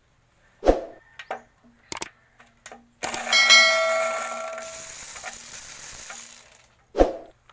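Metal-on-metal knocks and clanks from tool work on an engine block. About three seconds in, a sharp clang sets a metal piece ringing with several tones that fade over about three seconds. Another knock comes near the end.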